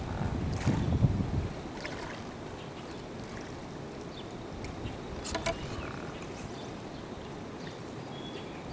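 Wind buffeting the microphone, with low gusts strongest in the first second and a half and a steady rush after. A few short, light clicks come about halfway through.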